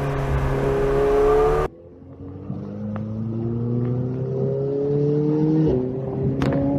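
McLaren 720S twin-turbo V8 heard from inside the cabin, first easing off with falling pitch. After an abrupt cut in the recording it accelerates with steadily rising pitch and shifts up near the end.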